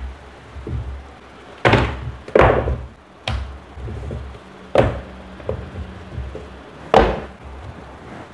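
A cardboard product box and a tablet keyboard case set down and shifted on a cloth-covered table: five knocks and thuds, the loudest two close together near the start and another near the end.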